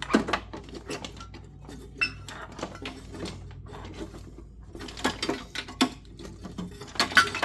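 Sharp plastic clicks and rattles of push-in pop clips and wiring-harness connectors being pried loose and pulled free. They come in scattered bursts with pauses between, and the loudest cluster is near the end.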